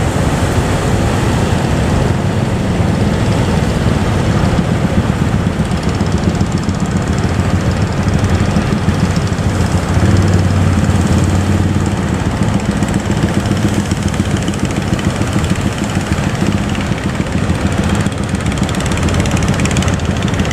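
Boat engine running steadily with a low, rapid chugging, over a constant rush of noise.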